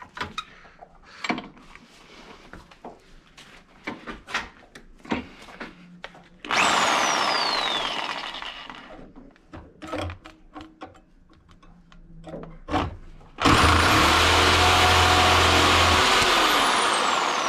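A high-speed handheld power tool cutting down a steel bolt that is too long. After a few seconds of light clanks and knocks, the tool makes a short burst about six seconds in and winds down with a falling whine. About thirteen seconds in it spins up again, runs steadily and winds down near the end.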